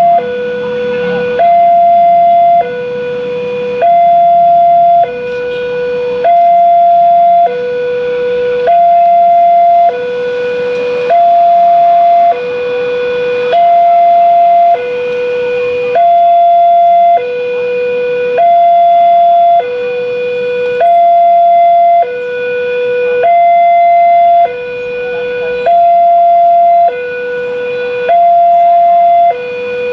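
Railway level-crossing warning alarm sounding a steady two-tone hi-lo signal, a higher and a lower note alternating about every 1.2 seconds while the crossing is closed for a train.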